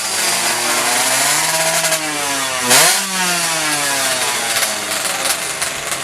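A two-stroke underbone drag bike's engine, tuned up to 116 cc, revving hard with a rasping exhaust. Its pitch climbs to a peak about three seconds in, then falls away steadily.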